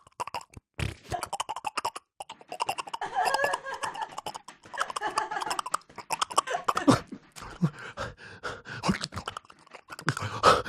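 A man making wet mouth smacks and clicks in quick, irregular succession, imitating the sounds of sex.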